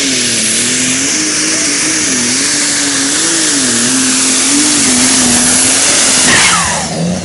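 Superstock pulling tractor's diesel engine running flat out under load as it drags the weight sled, its pitch wavering up and down while the tractor bounces. Near the end the engine sound drops away with a falling whine.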